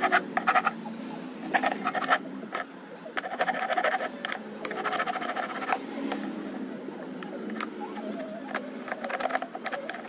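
A metal tool scraping and filing a corroded lead terminal post of an old lead-acid inverter battery, cleaning it. The strokes come in rapid bursts with short pauses between them.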